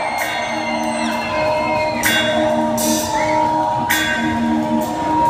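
Background music with a steady beat: a hip-hop backing track playing through a hall's sound system.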